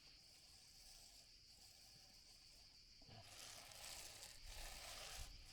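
Near silence: faint outdoor background hiss that becomes louder about three seconds in.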